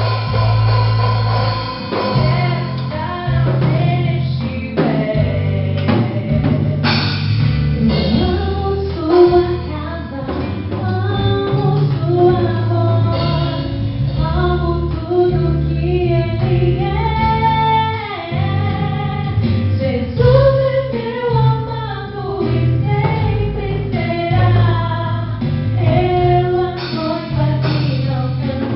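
Song with a female lead voice singing over guitar, bass and drum kit.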